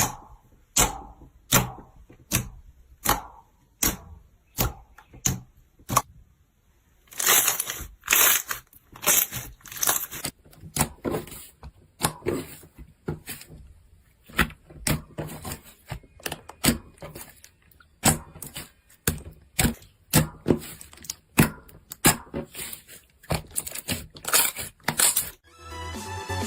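Slime being pressed and squished by hand, giving a run of sharp clicks and pops about one or two a second, with a denser crackling stretch from about seven to ten seconds in.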